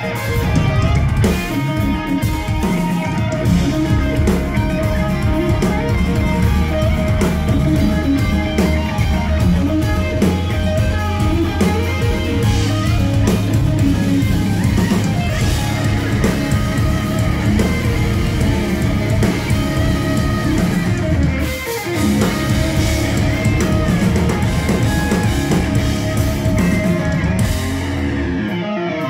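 Live instrumental progressive rock played by a band of electric guitars, bass guitar and drum kit. The low end drops away just before the end.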